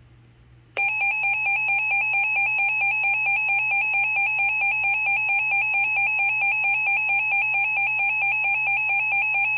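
A smartphone's emergency alert attention tone for a tornado warning: a loud, rapidly pulsing electronic alarm that starts abruptly about a second in.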